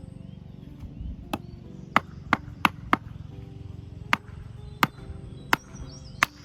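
Firewood being split at a campsite: about nine sharp chopping strikes of a blade into wood, irregularly spaced, several in quick succession around the middle. Background music plays underneath.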